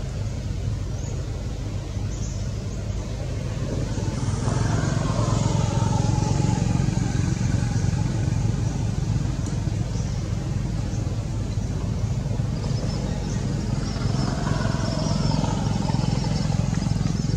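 Steady low rumble of a motor vehicle engine, growing louder about four seconds in and again near the end.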